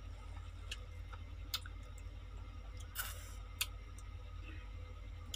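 Someone eating a ripe mango: scattered short wet mouth clicks and smacks as it is bitten and chewed, with one longer wet sound about three seconds in, over a steady low hum.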